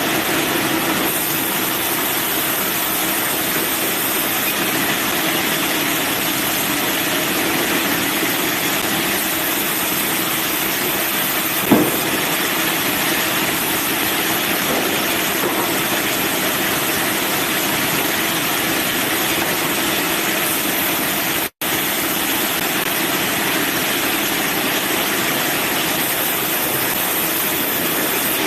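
Band sawmill running steadily with a loud, even machine noise. There is one brief sharp knock about twelve seconds in, and the sound cuts out for an instant a little past twenty-one seconds.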